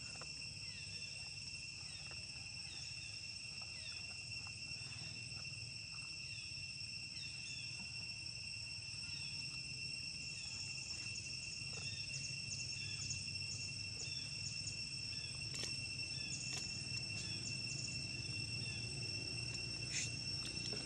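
Steady high-pitched insect drone made of two even tones, with short chirps repeating over it. A few faint clicks come in the second half.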